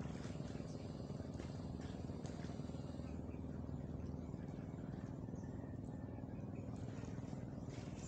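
A low, steady engine hum that holds at one pitch throughout, with faint scattered ticks above it.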